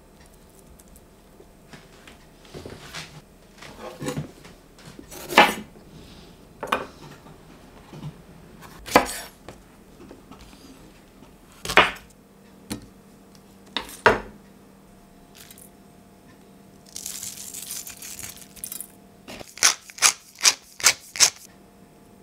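Kitchen handling sounds without music: hands rubbing seasoning into raw pork steaks in a metal tray, then several sharp knocks of metal dishes and utensils. Near the end comes a short burst of rustling, like seasoning being sprinkled, followed by a quick run of five sharp clicks.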